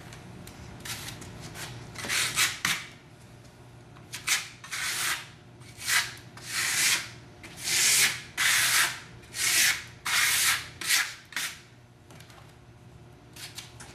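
A trowel scraping repeatedly across a wet coat of textured stone-finish plaster on a board. About a dozen short scraping strokes come in an uneven rhythm, some quicker and some longer.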